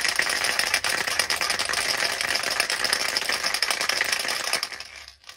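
Aerosol can of spray paint being shaken hard, its mixing ball rattling rapidly inside to mix the paint; the rattling stops about four and a half seconds in.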